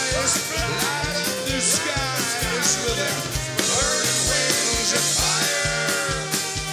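Live rock band playing, with singing over guitar and a steady drum beat of about three hits a second.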